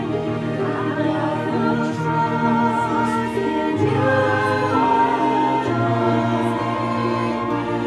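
A worship hymn sung by a group of voices over a steady instrumental accompaniment, with long held notes and a bass line that moves every second or two.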